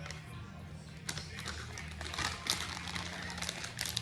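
Plastic bag of shredded Colby Jack cheese crinkling and rustling, with scattered small clicks and taps, as the cheese is sprinkled out, over a steady low hum.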